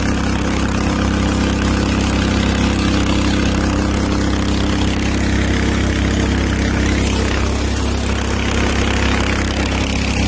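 Ride-on lawn tractor's engine running at a steady speed while mulching grass.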